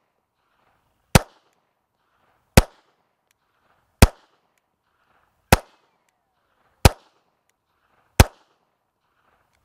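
Heckler & Koch HK4 pistol firing .380 ACP rounds, six single shots at a slow, even pace about a second and a half apart.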